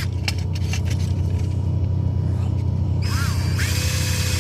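A small electric drill handles and clicks against a metal tin, then spins up with a whine near the end as holes are drilled in the tin. A steady low rumble sits underneath throughout.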